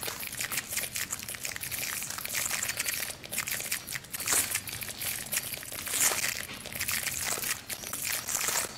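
Dense, continuous crinkling and crackling: many small clicks in quick, irregular succession, rising and falling in loudness. It is a live-mixed, manipulated sound-art texture.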